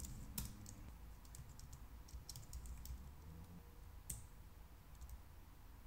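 Computer keyboard keystrokes: faint, irregular key clicks, with a louder one near the start and another about four seconds in.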